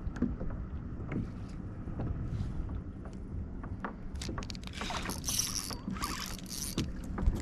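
Water sloshing against a fishing kayak's hull, with a low wind rumble on the microphone and scattered light knocks. A little past halfway, a louder hiss comes in for about two seconds.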